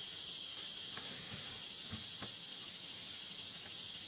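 Insects trilling in one steady, high-pitched drone, with a few faint knocks behind it.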